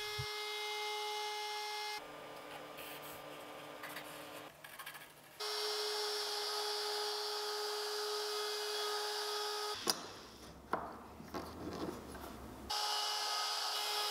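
DeWalt compact router running at full speed with a steady high whine as it cuts into wood. The whine breaks off twice, about 2 seconds in and about 10 seconds in, each time giving way to quieter handling noise and a few knocks, before it resumes.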